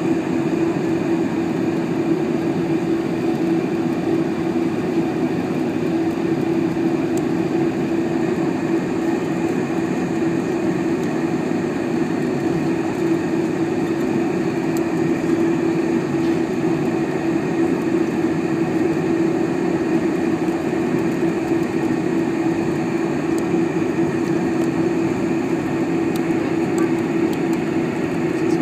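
Steady cabin noise of a Boeing 747 taxiing on the ground, its engines at low power: a constant drone with a strong steady hum, unchanging throughout.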